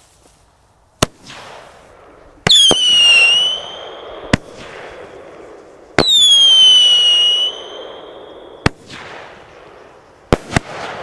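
A 25 mm mushroom firework battery firing: sharp bangs every second or two as shots launch and burst. Twice, a loud whistle sounds that falls a little in pitch and lasts about a second.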